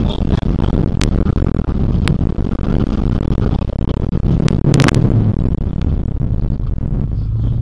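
Fiat Cinquecento Sporting's 1.1-litre four-cylinder engine driven hard on a rally stage, heard from inside the cabin along with loud road noise from the rough surface. Several sharp cracks come through, about one and two seconds in and a double one near five seconds.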